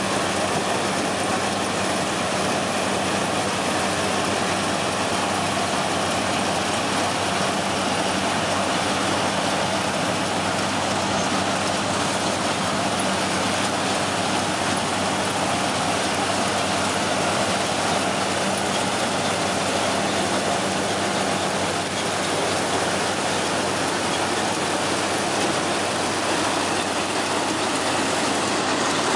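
Nabha NS-929 4x4 combine harvester running steadily while harvesting: the engine's low hum under a dense, even mechanical noise from the working machine.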